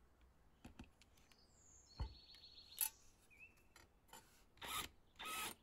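Cordless drill driving a screw with a washer into a thin sheet-metal plate. A click and a brief high motor whine come about two seconds in, then several short bursts near the end as the screw bites into the metal.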